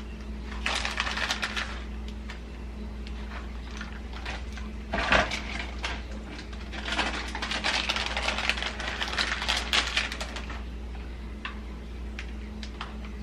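Crinkling of a plastic bag of shredded cheese in several bursts as the cheese is shaken out and sprinkled by hand, with a sharp knock about five seconds in. A low steady hum runs underneath.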